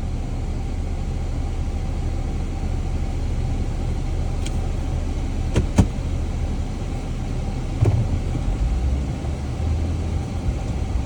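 Jeep engine running steadily at low revs, with a few short knocks around the middle and a shift in the low hum about eight seconds in.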